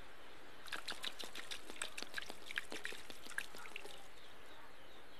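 Fuel poured from a glass bottle into a motorcycle's fuel tank, heard as a quick, irregular run of glugs and splashes that starts just under a second in and stops a little before four seconds.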